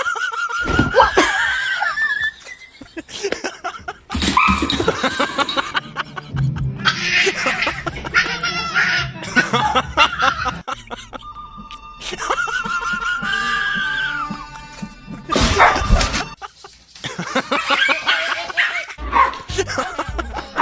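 A string of short clips cut together: background music with dogs barking and people laughing, the sound changing abruptly every few seconds.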